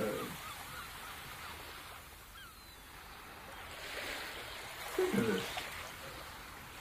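Surf ambience: waves washing in, fading and then swelling again about four seconds in, with a short pitched vocal sound about five seconds in.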